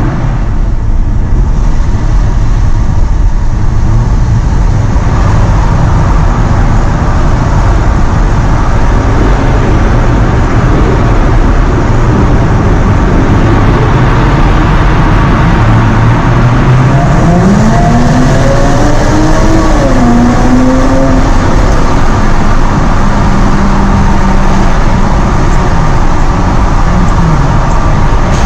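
Jaguar F-Type under way, with steady engine and road noise. About two-thirds of the way through, the engine note climbs as it accelerates, holds for a few seconds, then falls away near the end.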